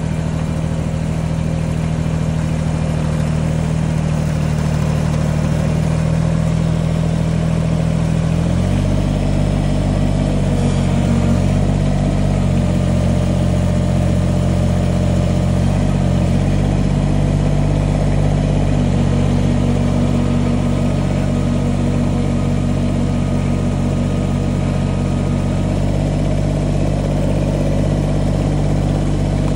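Diesel engine of an old Kubota 2350 compact tractor running steadily under load while the loader's pallet forks gather and lift a brush pile. About a third of the way in the engine note steps up and gets a little louder, then wavers a few times as it works.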